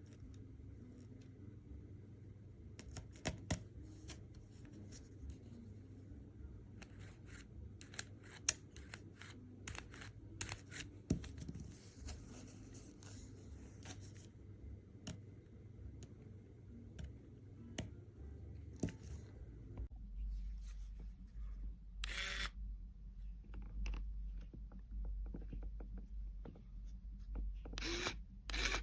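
Faint handling noises: scattered small clicks for most of the stretch, then a few louder brief rustles or scrapes near the end.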